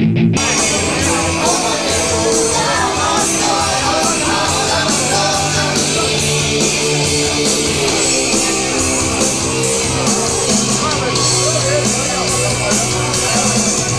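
Punk band playing live. Drums and the full band come in together just after the start and keep up a steady, fast beat under the electric guitar.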